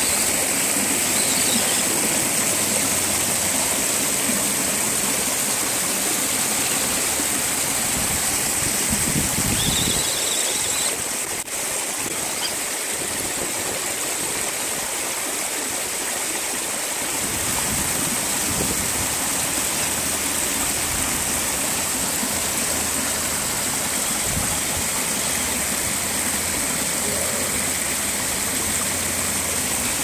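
Steady rush of a shallow stream and small waterfall, with the Redcat RC rock crawler's motor running at times as the truck climbs the wet rocks.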